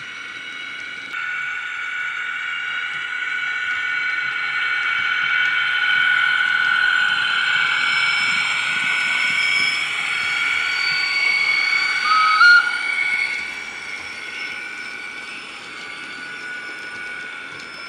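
Recorded flange squeal from a LokSound 5 DCC sound decoder, played through the small speaker of a Heljan ES1 electric locomotive model as its wagon train rounds a curve: a long, steady, high-pitched squeal of several tones together, swelling towards the middle and easing off later. A short, loud squeak that steps up in pitch comes about twelve seconds in.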